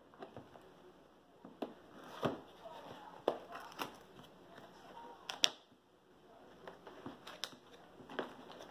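Small plastic bags of diamond-painting drills being handled: scattered crinkles and light clicks, the sharpest about five and a half seconds in.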